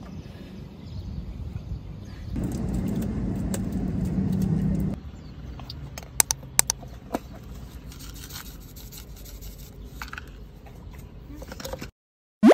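Low rumble of car cabin background noise, louder for a couple of seconds, then quieter with a few sharp clicks and light scraping. Near the end the sound cuts out and a short, loud rising sweep plays.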